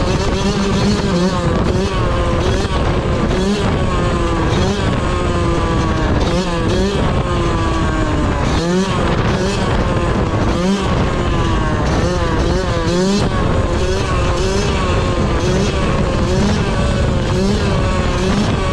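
Yamaha YZ125's single-cylinder two-stroke engine under riding load, revving up repeatedly through the gears, with a few brief drops in revs where the throttle is closed or a gear is shifted.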